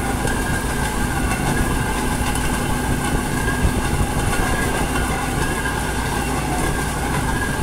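Narrow-gauge rail vehicle running at steady speed: a constant drone of engine and running gear with a steady whine over it, and wheels rolling on the rails.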